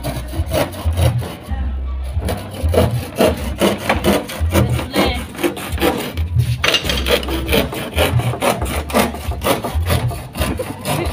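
Hand saw cutting through a wooden strip in quick, steady back-and-forth strokes, with a short pause about six seconds in.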